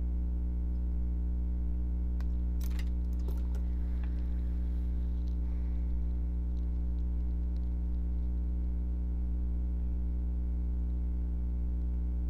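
Steady low electrical hum with a ladder of overtones, unchanging throughout, with a few faint ticks about three seconds in.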